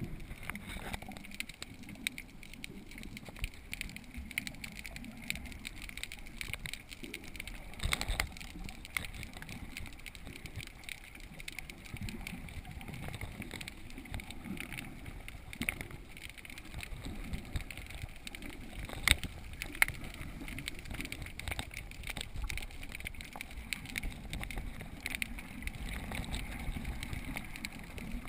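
Underwater sound heard through a GoPro's waterproof housing: a muffled low rush of moving water with many scattered clicks and pops, a few louder ones along the way.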